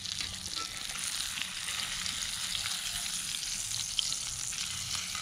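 Steak sizzling in a cast-iron skillet over a wood fire: a steady frying hiss dotted with small pops and crackles.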